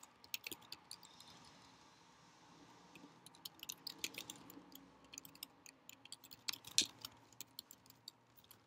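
Computer keyboard typing: faint, irregular key clicks in quick runs, with a short pause about two seconds in.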